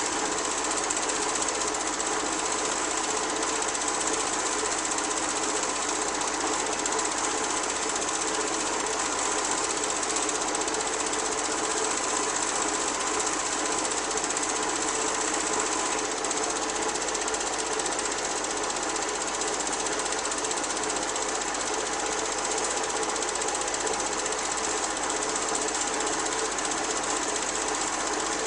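Home-movie film projector running steadily, its mechanism the only sound.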